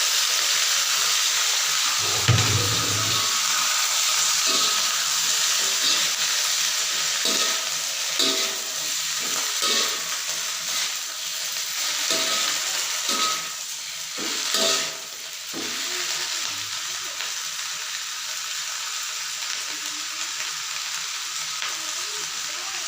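Food sizzling as it fries in a hot pan, with a utensil knocking and scraping against the pan as it is stirred, and a dull thump about two seconds in.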